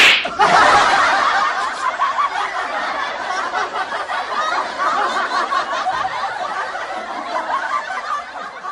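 A laugh track: many people laughing together, loud at first and then fading gradually.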